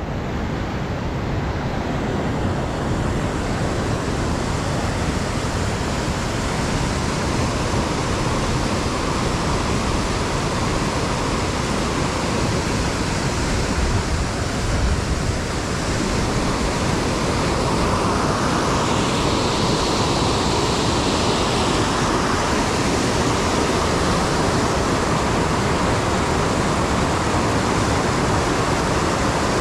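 Stream water running in a steady rush that grows a little louder and brighter past the middle.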